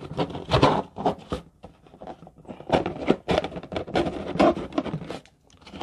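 Packaging and parts being handled and pulled out of a box: a string of irregular scrapes, rustles and knocks, with the part sticking as it is worked loose.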